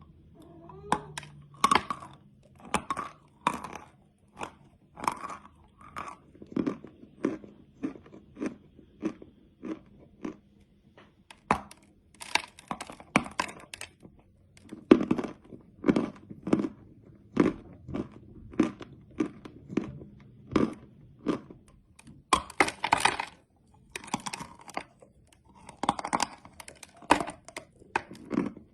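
Close-miked chewing and crunching of chalk candy: crisp crunches one after another, about one or two a second, with a few denser flurries of crunching.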